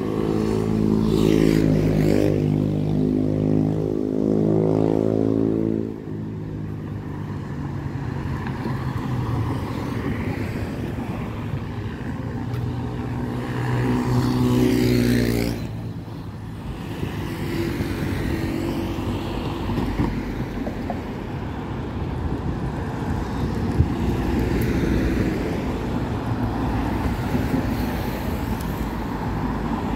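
Road traffic: an engine passes close by in the first few seconds, its pitch falling, and a second engine passes about halfway through; both drop away abruptly. Between and after them, a steady hum of traffic.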